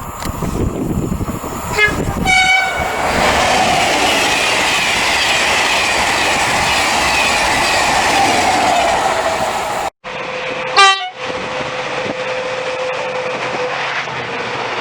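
A passing train sounds two short horn blasts over the loud rush of its running, the noise swelling after the blasts. After a cut, another train gives one short, loud horn blast over steady running noise.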